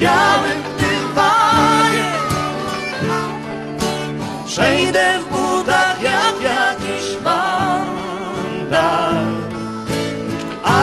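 Live singing with acoustic guitar accompaniment: a held, wavering vocal melody over strummed guitar chords.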